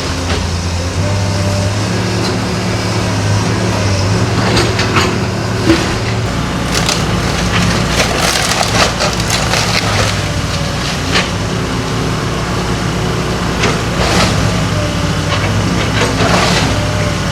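A house's wooden frame being crushed and torn apart in demolition, with repeated cracking, splintering and crashing, over the steady running of a heavy machine's engine.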